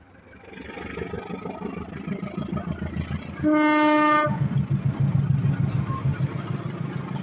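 Diesel-electric locomotive approaching and passing close, its engine and wheels on the rails growing louder. About three and a half seconds in it sounds one short horn blast of under a second, the loudest moment. A heavy rhythmic rumble follows as the locomotive goes by.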